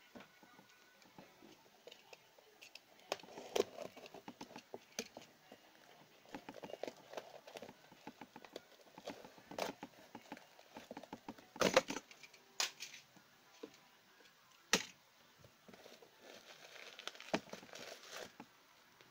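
Cardboard box wrapped in clear packing tape being torn open by hand: irregular crinkling of the tape and tearing of cardboard, broken by several sharp, louder snaps and cracks, the loudest a little past the middle.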